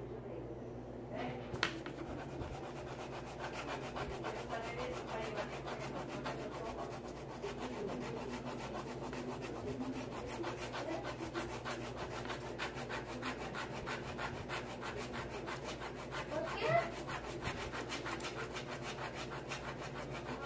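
Coloured pencil shading on paper, the pencil point rubbing back and forth in rapid, even strokes. A brief louder sound comes about three-quarters of the way through.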